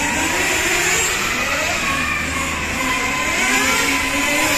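Several 1/10-scale nitro RC touring cars, Kyosho FW05T among them, with their small glow engines running around a track together, their overlapping whines rising and falling in pitch as the cars accelerate and brake.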